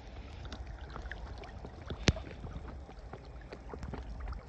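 Water lapping and lightly splashing close by, with many small patters and a steady low rumble of wind on the microphone. A single sharp click comes about two seconds in.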